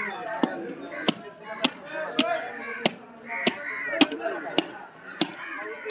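Heavy butcher's chopping knife hacking into a beef carcass: about ten sharp chops in a steady rhythm, a little under two a second.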